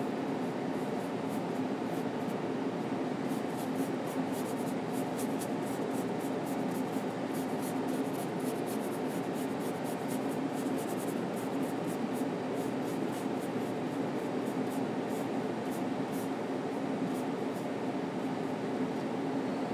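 Paintbrush bristles stroking oil paint across a linen panel: many quick, faint scratchy strokes from a few seconds in until near the end. Under them runs a steady low room hum, which is the louder sound.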